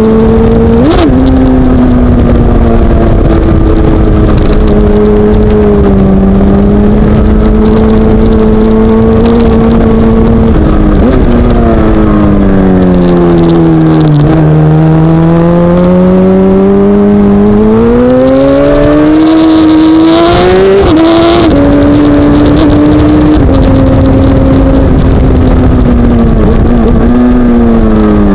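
Suzuki GSX-R1000 K7's inline-four engine pulling hard on a track, with heavy wind rush on the onboard microphone. The engine note holds steady, falls away as the bike slows into a bend about halfway through, then climbs under acceleration with a sudden drop in pitch that sounds like a gear change, and falls again near the end.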